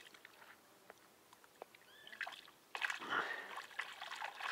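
Water sloshing and splashing, starting suddenly about three seconds in after a quiet stretch with a few small clicks.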